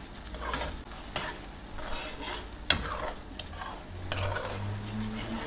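A metal spoon stirring a creamy shrimp and zucchini sauce in a frying pan on a gas flame, clinking against the pan several times while the sauce sizzles softly.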